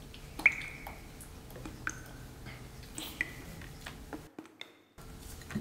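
Small glass cup clinking against a glass bowl a few times while being emptied, each clink ringing briefly.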